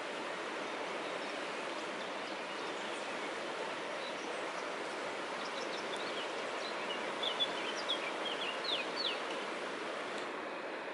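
Steady rushing of a river in spate, the flood water running fast and high. A bird sings a run of short, quick descending chirps over it in the second half.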